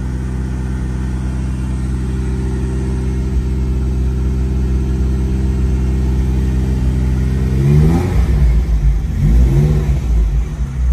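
1983 Ferrari Mondial Quattrovalvole's 3.0-litre 32-valve V8 idling steadily as it warms up after a cold start, heard from inside the cabin. About eight seconds in the engine note wavers and the revs rise briefly twice.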